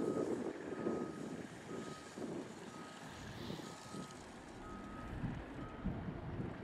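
Backup alarm of a Caterpillar 972M XE wheel loader beeping about once a second on a single steady tone, stopping near the end, over the loader's diesel engine running.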